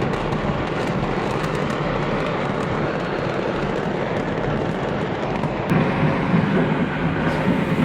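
A mass of fireworks going off at once: a continuous dense rumble full of rapid crackling pops, with a few louder bangs in the second half.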